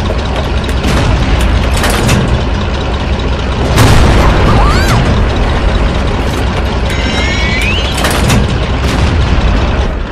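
Mixed sound effects: a loud, continuous booming rumble broken by many sharp impacts, with a short rising whistle about five seconds in and another, higher one around seven seconds.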